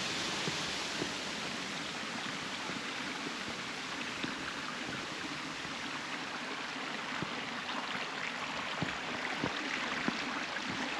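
Creek water running steadily over sandstone ledges at the lip of a waterfall.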